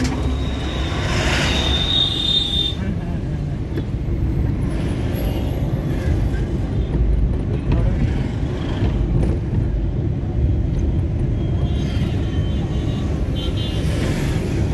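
Steady low rumble of heavy highway traffic, truck engines and tyres, with a louder hiss of vehicles passing close near the start and again near the end.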